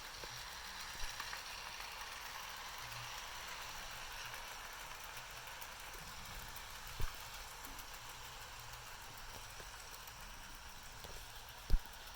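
Bachmann Spectrum GP-30 and GP-35 model diesel locomotives running on track, giving a steady rushing whir of motor and wheels. A few short low thumps come through it, the sharpest one near the end.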